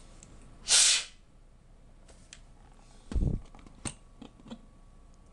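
A laptop's CPU heatsink being fitted back over the processor. There is a brief hissing scrape about a second in, then a dull knock and a few light clicks as it is set down and seated.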